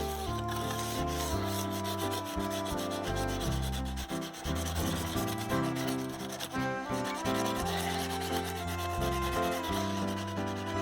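Background music with held chords and bass notes changing every second or so, over a continuous scratchy rubbing noise.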